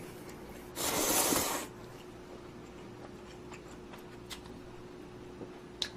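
A person slurping instant noodles once, a short hissing slurp about a second in, followed by faint chewing clicks over a steady low hum.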